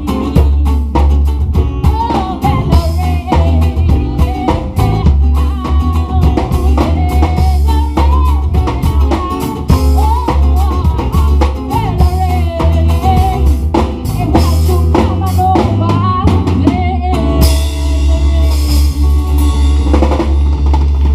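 Live band music: hand drumming on djembes with a drum kit and acoustic guitar over a heavy bass, and a wavering melody line on top. Near the end the melody drops out and cymbals come up.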